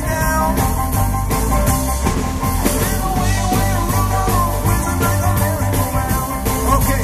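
Live rock band playing: electric guitars, bass and a drum kit keeping a steady driving beat.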